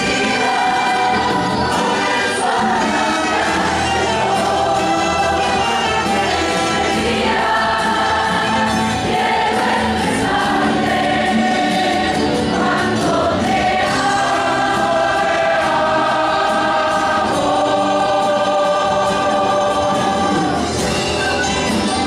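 A large mixed youth choir singing a worship song with a live church band: saxophones, trumpets and trombone over bass guitar, acoustic guitar, hand drums and a drum kit.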